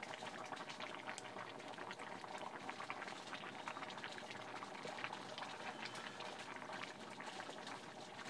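Pot of leafy greens boiling over an open wood fire: steady bubbling with a dense patter of small crackling pops.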